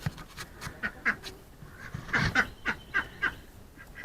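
Duck quacking: a string of short quacks, loudest about two seconds in.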